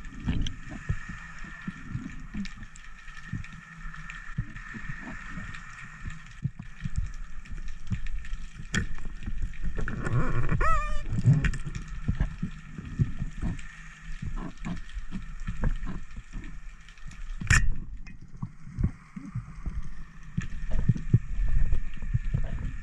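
Underwater sound from a diver's camera: water moving around the housing with many low knocks and thumps under a steady high hum. A single sharp crack about three-quarters of the way through is the speargun firing into a monkfish.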